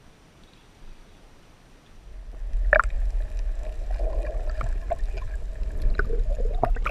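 Muffled rush and slosh of water around a camera held under the surface: a loud low rumble that starts about two seconds in, with scattered clicks.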